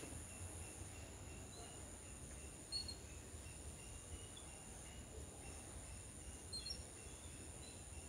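Faint, steady high-pitched insect drone, with a few brief high chirps about three seconds in and again near seven seconds, over a low rumble.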